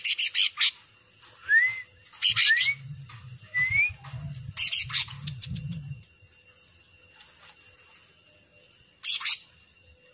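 Caged cucak ranting (a leafbird) singing in bursts: sharp, high chattering phrases with short rising whistles between them, then a pause of a few seconds and one more burst near the end. A low rumble sits under the song in the middle.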